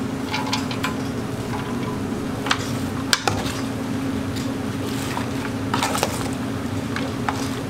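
A metal spoon mixing egg-coated shredded cabbage, carrot and ham in a stainless steel bowl: scattered clinks and scrapes of metal on the bowl over soft wet mixing. A steady low hum runs underneath.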